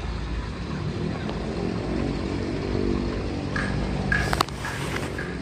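A motor vehicle engine hums steadily, loudest through the middle, over a low rumble of wind on the microphone. A few short high chirps and clicks come near the end.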